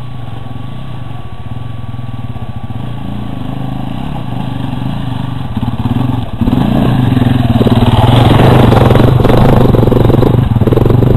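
Enduro dirt bike engines running as the bikes approach, growing steadily louder, much louder from about six seconds in and loudest near the end as the first bike passes close by.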